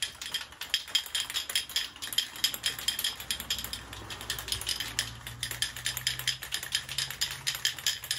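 Aerosol spray paint cans being shaken hard, the mixing balls inside rattling in a fast, steady clatter.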